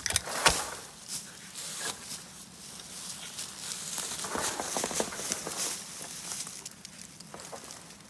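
Dry leaf litter crackling and rustling underfoot as someone moves through a bamboo grove, with a sharp knock about half a second in.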